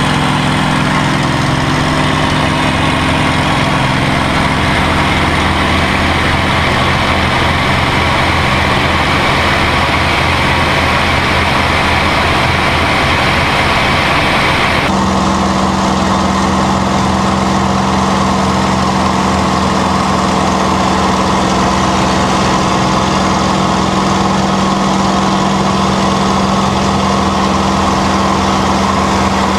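P-51D Mustang's Packard Merlin V-12 engine running steadily in flight. Its tone changes abruptly about halfway through, the hiss dropping and a deeper steady hum coming to the fore.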